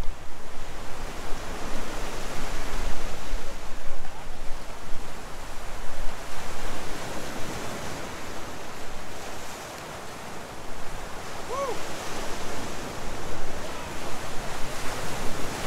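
Ocean surf breaking and washing over a rocky shore. The rush of water swells and ebbs with each wave.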